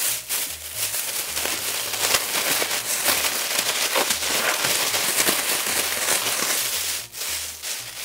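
Food sizzling and crackling in hot oil in a frying pan. The sizzle is loud and steady, starts suddenly and dips briefly about seven seconds in.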